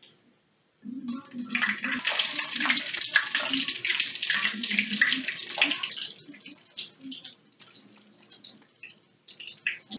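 Breaded chicken croquettes sizzling in hot grease in a skillet as they are turned with tongs. The sizzle flares up about a second in and dies down after about six seconds into scattered crackles and light clicks.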